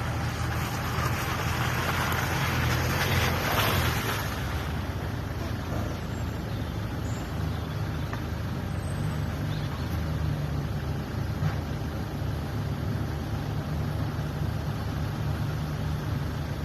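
An off-road 4x4's engine running steadily at low revs, with a rushing noise over it for the first four seconds that then dies away.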